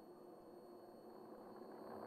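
Faint noise from a Eurorack modular synthesizer, slowly swelling in level toward the end.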